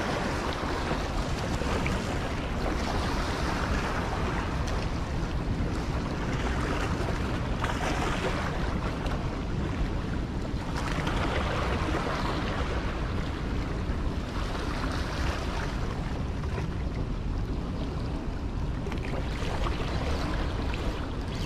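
Rushing water below a dam, a steady wash that swells and eases every few seconds, with wind rumbling on the microphone.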